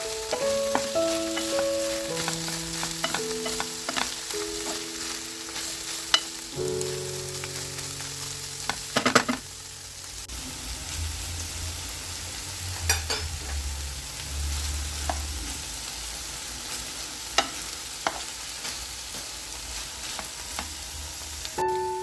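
Food frying in a pan with a steady sizzle, and now and then the sharp click of a utensil knocking against the pan as it is stirred. Soft background music with held notes plays over the first half and fades out.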